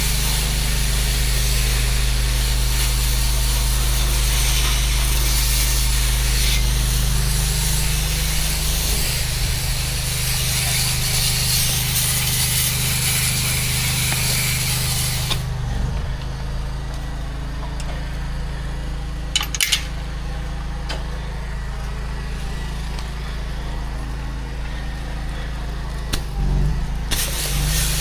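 Pressure-washing rig's engine running steadily while water sprays with a hiss; the spray stops about halfway through and starts again near the end, with the engine still running.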